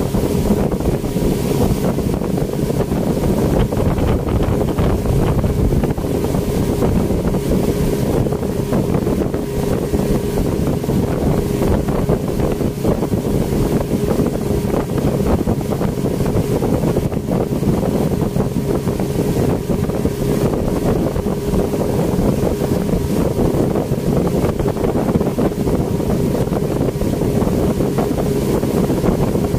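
Yamaha outboard motor on a speedboat running steadily at speed, with a constant engine drone, the wake rushing, and wind buffeting the microphone.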